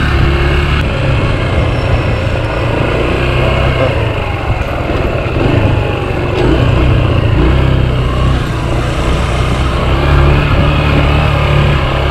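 Small dual-sport motorcycle's engine running while riding at low speed, its low note easing off and picking up again a few times with the throttle, with road and wind noise on the camera's microphone.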